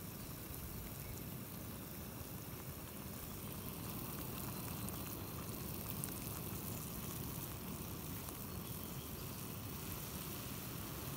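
Steady hiss of a Meva Spark gas canister stove's burner, with water boiling in a metal pot set on it.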